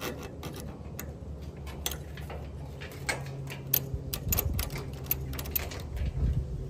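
Ratchet cargo-strap buckle being worked by hand: many quick, irregular metallic clicks and clacks. The buckle is stiff from the truck sitting unused and will not go into its release position.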